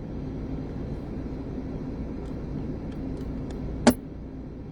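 A steady low rumble with one sharp, loud click about four seconds in and a few faint ticks before it.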